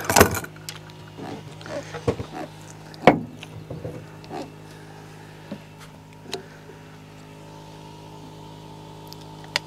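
Low, steady engine drone with a sharp knock at the start and another about three seconds in, and a few lighter clicks and taps between them.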